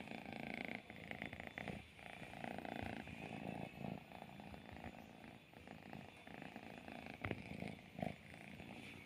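Domestic orange-and-white cat purring steadily close to the microphone, with a couple of short knocks near the end.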